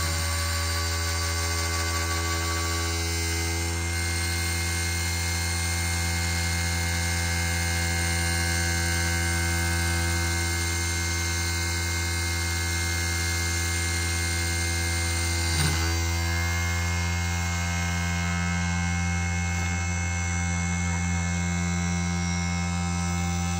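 Small desktop CNC lathe, converted from a CNC1610 machine, running during a test cut: a steady motor hum with a stack of steady whining tones above it. A brief click comes about two-thirds of the way in.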